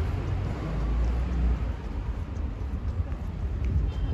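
City street background noise: a low, steady rumble with little else heard above it.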